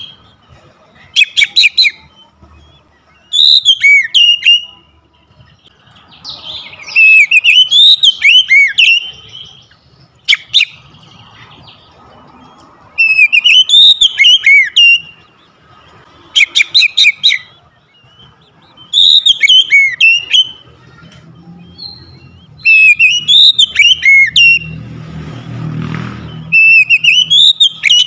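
Oriental magpie-robin singing in loud bursts of sweeping whistled phrases every two to three seconds, some broken up by rapid clicking notes. A low rumble rises under the song near the end.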